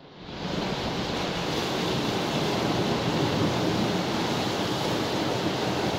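Steady rushing of sea surf against a rocky shore. It swells up over the first half second and then holds even.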